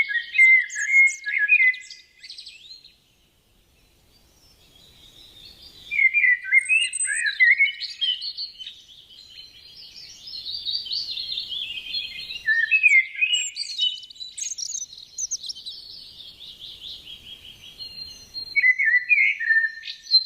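Birds chirping and singing in rapid, overlapping high phrases, with a pause of a few seconds near the start.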